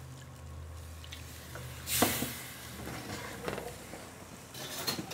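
Wooden spoon stirring a simmering red-wine sauce in a stainless steel sauté pan as roux is worked in, with a sudden burst of hissing about two seconds in and a few light clicks near the end.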